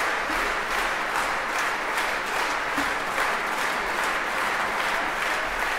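Concert-hall audience applauding, the clapping falling into a steady rhythm.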